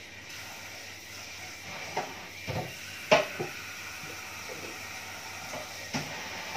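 Cutlery clinking against a bowl while eating, a few short clicks, the loudest about three seconds in, over a steady faint hiss.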